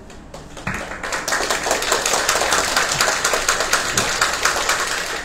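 Audience applauding, a dense patter of many hands clapping that starts about a second in and holds steady.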